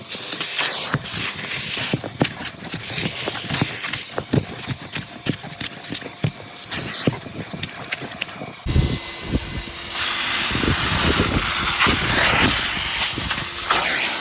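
Numatic CT375 spray extractor running while wet-vacuuming: a steady hiss of spray and air and water drawn through the small fishtail nozzle, with many short knocks and clicks from the nozzle working the surface. About nine seconds in the sound changes abruptly, with a steady hum and a low rumble joining the hiss.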